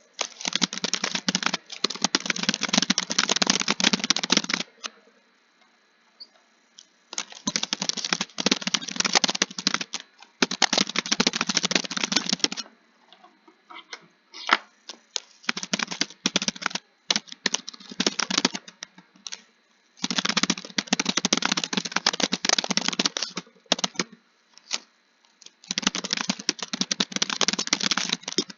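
Fast typing on a keyboard: dense runs of key clicks lasting a few seconds each, broken by short pauses and a few scattered single keystrokes.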